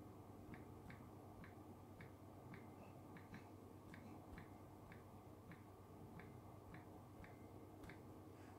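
Faint ticks of typing on a Samsung Galaxy S10 Plus touchscreen keyboard, about two key presses a second, over a low steady hum.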